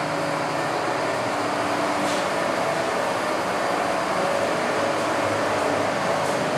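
Steady mechanical drone of a passenger ship's machinery and ventilation on an enclosed deck.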